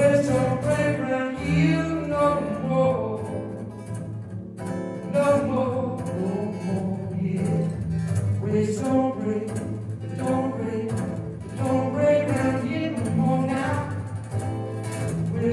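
Live song with an acoustic guitar strummed steadily under a singing voice.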